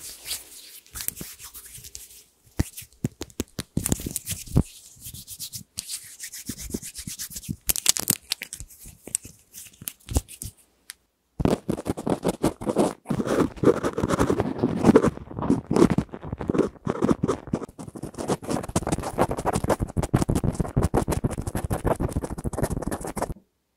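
Hands rubbing together close to a binaural microphone, in scattered soft strokes; after about eleven seconds, cotton swabs are rubbed and poked rapidly against the microphone's ear capsules, a louder, dense run of fast scratchy strokes.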